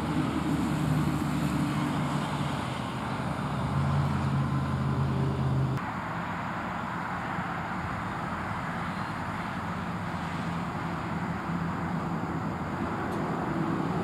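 Road traffic noise: a steady hiss of passing cars with a vehicle engine's low hum over it, which cuts off abruptly about six seconds in and leaves a quieter steady traffic hiss.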